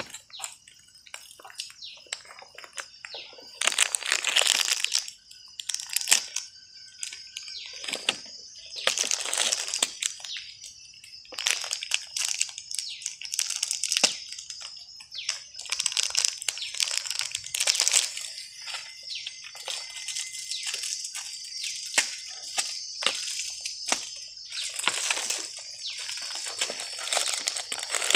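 Plastic snack-cake wrapper crinkling and rustling in irregular bursts as a bonnet macaque grabs and tugs at it, failing to tear the packet open.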